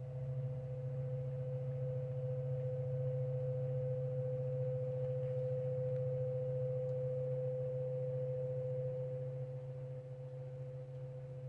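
CNC milling machine's Z-axis drive whining on one steady tone over a low hum as the spindle head slowly lowers the tool toward the tool-height setter in an automatic touch-off probing cycle. The whine eases slightly near the end.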